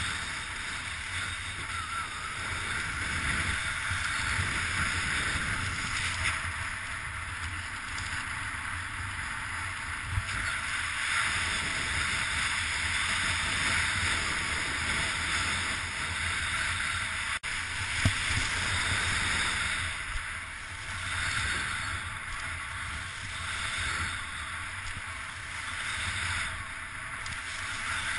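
Steady rushing wind noise that swells and fades every few seconds, with a sharp click about eighteen seconds in.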